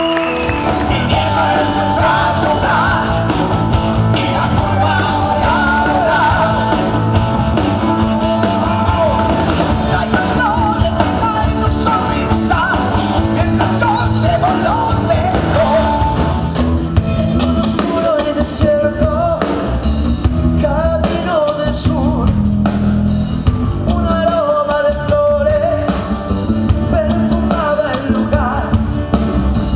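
Live rock band: a male lead singer sings a melody over electric guitar and drums, with the drum hits growing stronger about halfway through.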